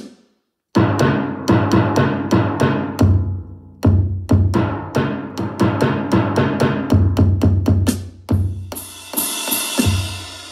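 Roland HandSonic electronic hand-percussion pad played in a fast drum pattern through a QSC CP8 8-inch powered loudspeaker, with rapid sharp strikes over deep bass-drum hits. Near the end a cymbal crash rings out and fades.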